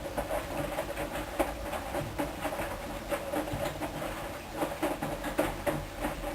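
Hoover Dyn 10124 DP front-loading washing machine running a wash: a steady motor hum under many irregular soft knocks as the load tumbles in the turning drum.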